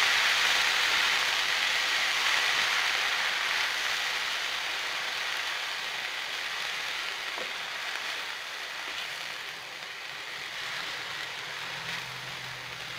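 Chopped banana flower frying in hot oil in a kadai, sizzling while it is stirred with a wooden spatula; the sizzle slowly dies down.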